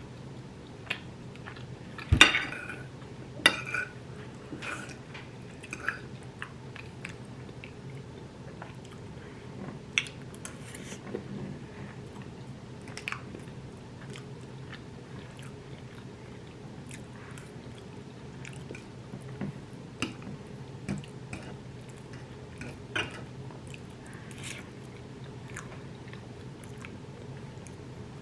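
Close-miked chewing and biting of someone eating enchiladas, with scattered short clicks and knocks of dishes and cutlery, the loudest a sharp knock about two seconds in.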